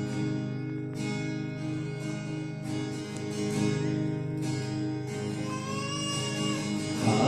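Acoustic guitar strummed in a slow, steady rhythm, playing the instrumental lead-in to a hymn.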